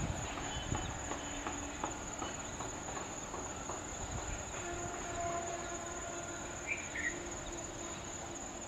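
A train hauled by a WCAM3 electric locomotive rumbles away along the track, slowly fading, with a few sharp wheel clicks over rail joints in the first two seconds. A steady high-pitched insect drone runs underneath, and a faint held tone comes in about halfway through.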